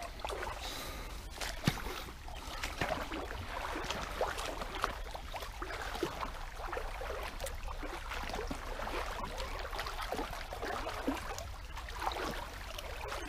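Shallow stream water swishing and trickling, with small irregular splashes as a child wades and sweeps a pond-dipping net through it.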